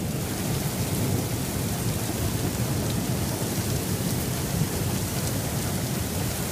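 Thunderstorm: steady rain with a continuous low rumble of thunder.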